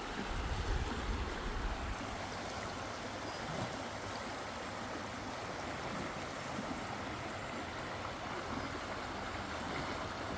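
River water flowing steadily, a continuous even rush of moving water.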